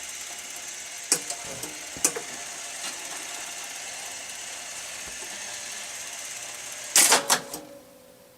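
Rock-Ola 443 jukebox mechanism running with a steady whir and a few sharp clicks, then a cluster of loud clunks about seven seconds in, after which the running stops. The jukebox is stuck scanning, which the owner puts down to a scan fault or possibly a blown fuse.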